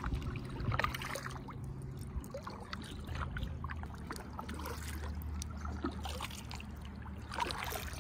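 Kayak paddle strokes in calm river water, with short irregular splashes and water dripping off the blades.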